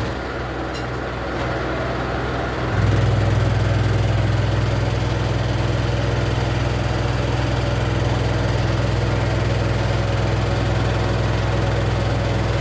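Washer-dryer running with an abnormal noise: a steady low hum and drone from the machine. The hum drops back for the first few seconds, then comes back stronger and holds steady.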